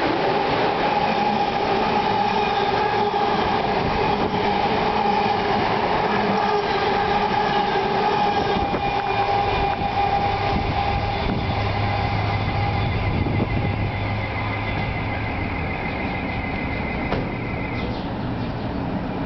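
Amtrak Regional passenger train led by an HHP-8 electric locomotive passing close: a steady rumble of wheels on rail with a high, even whine. The whine fades about halfway through as the train draws away. A low hum and a second high tone then take over and stop shortly before the end.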